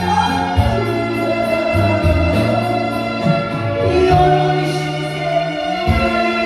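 Music with singing over a steady beat and held bass notes that change about once a second.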